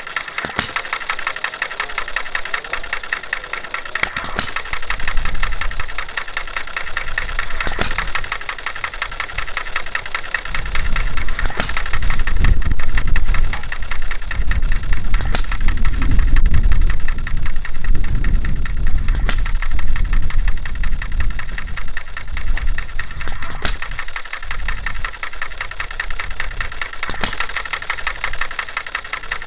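Jerry Howell Farm Boy model single-cylinder hit-and-miss petrol engine running, with a fast, even mechanical clatter and a sharp pop about every four seconds. A deeper low rumble swells through the middle and is the loudest part.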